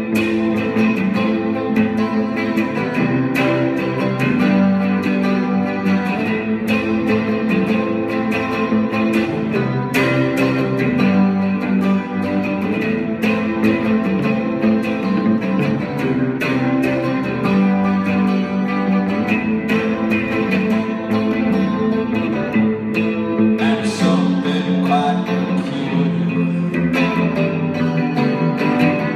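A Telecaster-style electric guitar and an electric bass playing a rock song together through an amplifier: the guitar strummed in a steady rhythm over changing bass notes.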